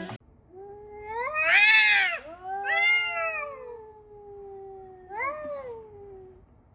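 A cat giving three long, drawn-out meows that rise and fall in pitch. The first, about a second and a half in, is the loudest; the second runs on longest, and a shorter third call comes about five seconds in.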